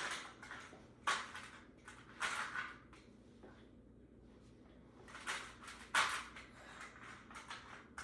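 A few short knocks and rustles of things being handled, with quiet room tone between them.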